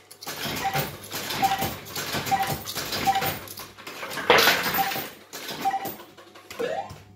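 Bell Fruit Cash Explosion fruit machine's sound effects: a run of short electronic beeps, about one a second, over dense clattering clicks, with a loud burst about four seconds in and a short rising tone near the end.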